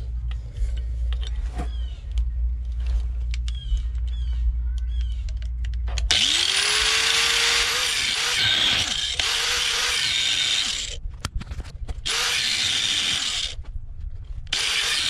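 A low steady hum with a few small clicks, then about six seconds in a high-speed power tool spins up with a rising whine and grinds into the seized steel fan bolt with a harsh hiss. It runs in three stretches separated by short pauses.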